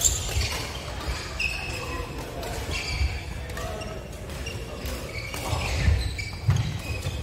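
Badminton rally on a wooden sports-hall court: players' shoes thud and squeak on the floor as they move, with the sharp crack of rackets striking the shuttlecock every so often.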